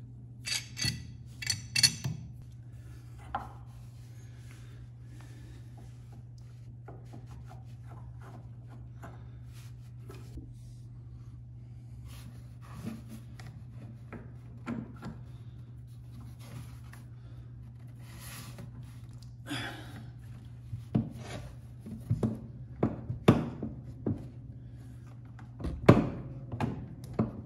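Hands setting up a drill bit, a wooden guide block and a clamp: scattered clicks, knocks and light scraping over a steady low hum. A short run of sharp knocks comes at the start and another through the last eight seconds, with no drill running.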